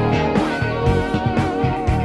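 Live rock band playing, with electric guitar over drums and bass. A held, slightly wavering note sustains from about halfway through.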